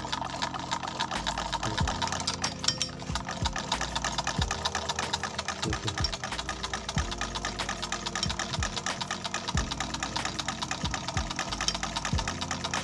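Sewing machine running steadily through cloth, its needle strokes making a rapid, even ticking, as it sews a test seam with the presser foot newly reset lower to cure skipped stitches.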